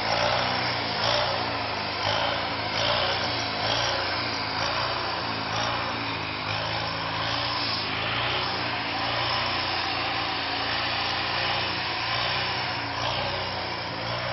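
Nuffield 460 tractor engine running steadily as the tractor is driven, its pitch wavering slightly, with a dense rushing noise over it.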